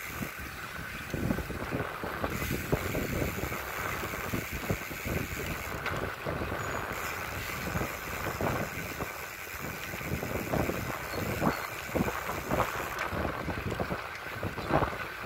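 Wind buffeting the microphone while riding a bicycle along a paved road: an uneven rush with irregular low gusts and thumps.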